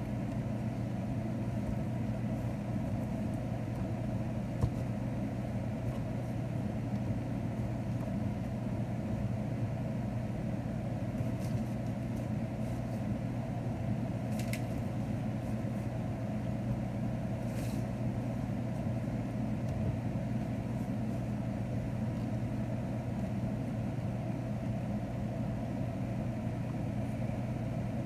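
Steady low mechanical hum with a few faint light knocks.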